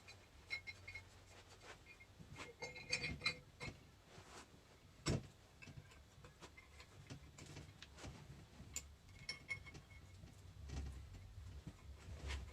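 Faint, irregular small metal clicks and taps of hand work on a hydraulic control valve as its bottom cover is fitted and bolted on, with one sharper knock about five seconds in.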